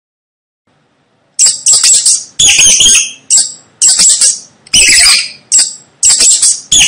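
Mice squeaking: a rapid string of about ten shrill, high-pitched squeaks, starting about a second and a half in.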